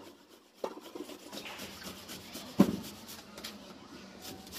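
Knife slicing an onion on a chopping board: soft cutting and rubbing strokes with a few knocks of the blade on the board, the loudest about two and a half seconds in.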